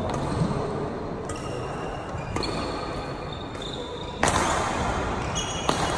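Badminton court sounds: brief high shoe squeaks on the hall floor and scattered racket-on-shuttlecock hits, with one sharp, louder hit about four seconds in.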